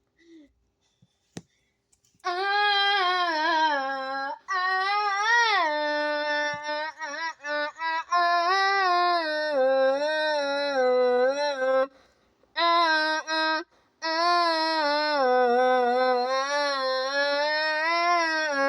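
A high voice singing long wordless notes with a wavering, yodel-like pitch, held for several seconds at a time with a few short breaks.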